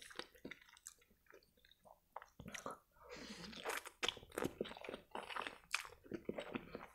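A person slurping spaghetti strands into the mouth about three seconds in, then chewing with short wet clicks and smacks.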